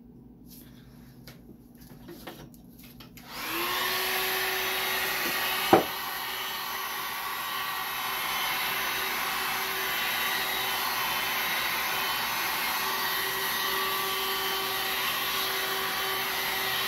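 Handheld electric blower switched on about three and a half seconds in and running steadily with a constant hum, its air blowing over wet epoxy resin. A single sharp click comes about two seconds after it starts.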